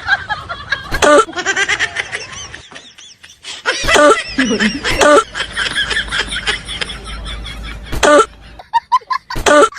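Laughter in repeated bursts, broken by several loud, sharp outbursts.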